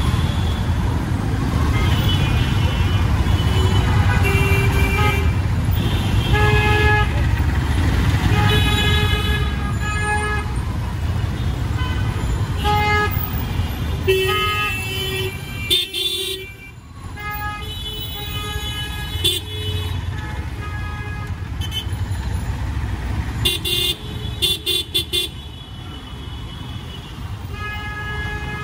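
Jammed city traffic: vehicle horns honking again and again over the steady low rumble of idling and crawling engines. About two thirds of the way through, one horn gives a quick run of short toots.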